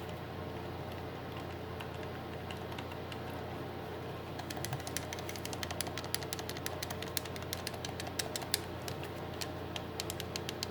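PS4 controller buttons being pressed over and over: a fast, irregular run of sharp clicks that starts about four seconds in, with the buttons sounding like new.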